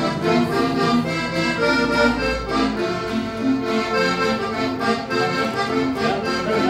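Instrumental traditional Mexican music led by an accordion, sustained chords and melody playing continuously.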